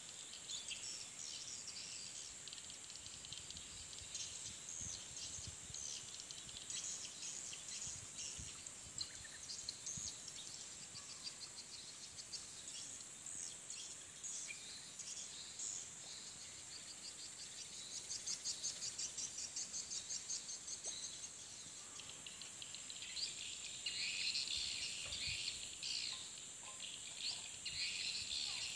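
Edible-nest swiftlets chirping and twittering, high and rapid, from the birds and the swiftlet house's call-sound lure. There is a quick even run of pulsed chirps about two-thirds through and denser, louder chirping near the end, over a steady high insect hiss.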